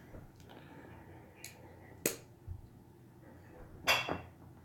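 A few sharp clicks and light clinks of small hard objects: a faint one about one and a half seconds in, a crisper one about two seconds in, and a louder clink with a short ring near the end.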